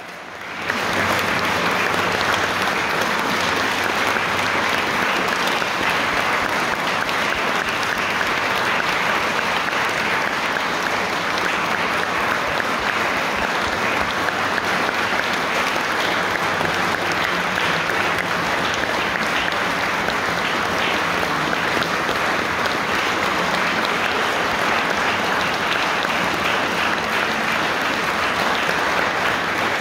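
Audience applauding steadily, a dense unbroken clapping that comes back up to full strength within the first second.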